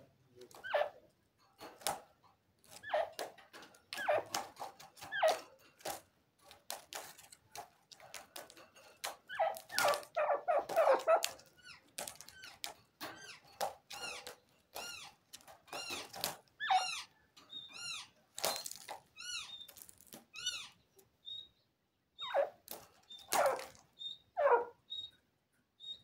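Caged grey francolin (Irani gora teetar) calling: a string of short, sharp clucking notes, then around the middle a run of quick downward-sliding chirps, and near the end short high piping notes.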